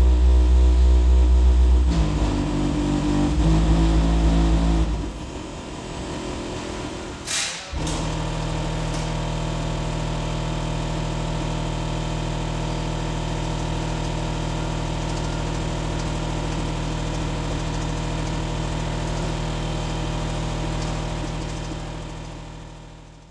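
Kicker CompVR 12-inch car subwoofer playing bass-heavy music at about 125 dB for around five seconds. After a short lull with a brief high sweep, it holds a steady 40 Hz test tone that fades out near the end.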